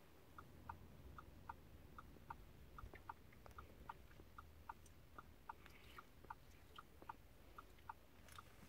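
Level-crossing audible alarm heard faintly through a closed car: a steady run of short two-note beeps, about two and a half a second, over a low cabin rumble.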